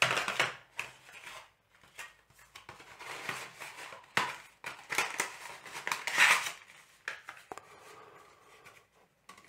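Rustling and clicking of packaging being handled as a cable is taken out of its box, in short irregular bursts with sharp clicks.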